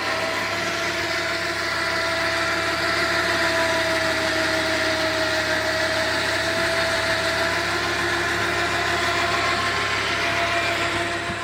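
Diesel pickup truck's engine idling steadily, an even hum that holds one pitch.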